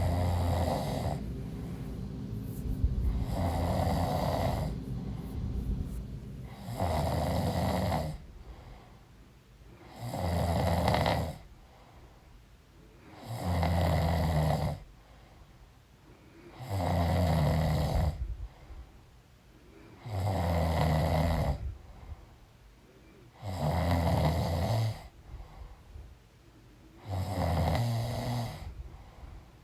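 A woman snoring in her sleep: a loud, low snore on each breath, repeating evenly about every three and a half seconds, each lasting a second or so.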